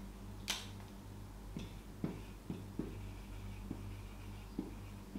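Marker writing on a whiteboard: a sharp click about half a second in, then a string of faint taps and short squeaks as the letters are written, over a low steady hum.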